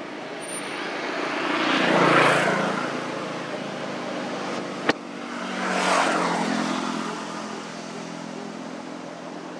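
Two motor vehicles passing one after the other, each engine sound swelling and then fading away. A single sharp click sounds about five seconds in.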